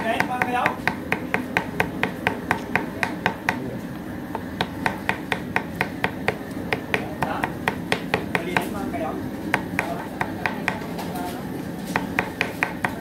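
Kitchen knife mincing rapidly on a thick wooden chopping board, about four to five sharp chops a second. The chopping pauses about nine seconds in and picks up again near the end.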